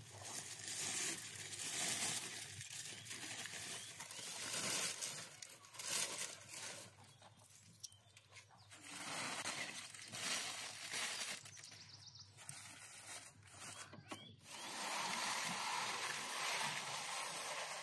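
Aluminium foil and baking paper crinkling and rustling in irregular bursts as they are peeled off a roasted whole lamb, with a longer, steadier stretch of noise near the end.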